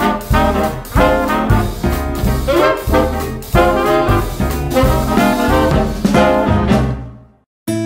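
Upbeat brass-led swing music, trombone and trumpet over a steady beat, fading out about seven seconds in.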